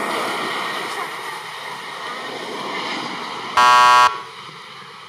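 Steady jet noise of a landing Airbus A320, slowly fading. About three and a half seconds in, a loud game-show 'wrong answer' buzzer sound effect cuts in for half a second, marking a miss.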